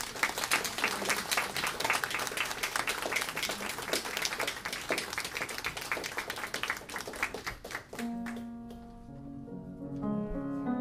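Audience applause, many hands clapping, for about eight seconds; it fades, and instrumental music with held notes begins.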